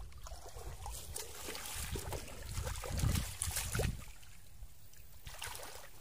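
Bare hands splashing and sloshing through shallow muddy water while grabbing for fish, in irregular bursts that are loudest about three to four seconds in, then settling.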